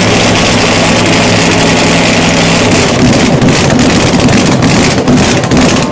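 Loud car engine running, a steady drone for the first few seconds that turns rougher and more uneven about halfway through.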